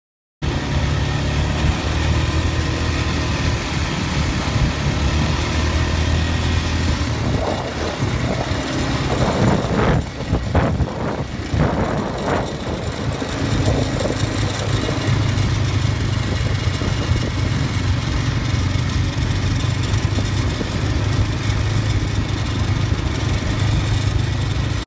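Small youth ATV (quad) engine running steadily as the quad is ridden, with a louder, uneven stretch in the middle.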